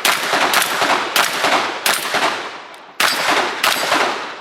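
Shotgun firing in quick succession during a timed IPSC stage: about six loud shots roughly half a second to a second apart, each ringing out, with a gap of over a second before the last two shots.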